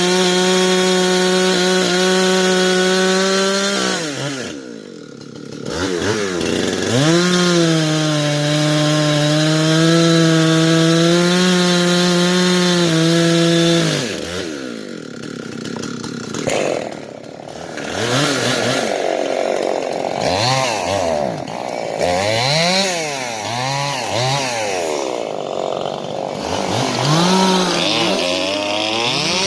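Chainsaw running at high speed in a long cut through wood, easing off twice, then revved up and down in a series of short blips.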